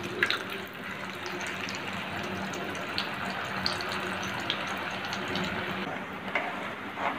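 Puri frying in hot oil in a kadai over a low flame: a steady soft sizzle with fine crackling, and a couple of light clicks of a slotted metal spoon against the pan.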